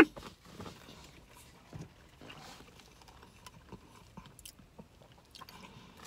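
A person chewing a mouthful of food, close to the microphone: faint, scattered short clicks and mouth noises.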